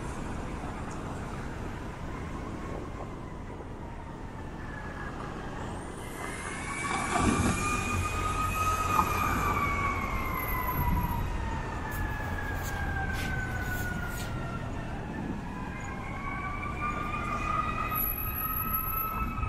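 Emergency vehicle siren in a slow wail, its pitch rising and falling over several seconds and growing louder after the first few seconds, over street traffic. A vehicle passes close about seven seconds in.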